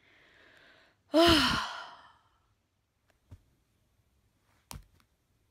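A woman's long exasperated sigh: a breath in, then a loud voiced exhale that rises and falls in pitch and trails off. Later come a faint click and then a sharper click near the end.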